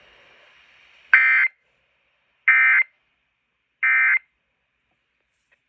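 Emergency Alert System end-of-message signal: three short, identical bursts of digital data tones, each about a third of a second long and about 1.3 s apart, closing the broadcast alert.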